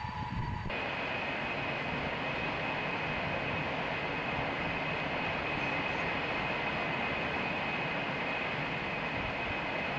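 Ilyushin Il-76's four jet engines running up to takeoff power on a wet runway: a steady high whine over a broad rush, blowing spray off the runway. Under a second in, the sound jumps fuller and the whine moves higher.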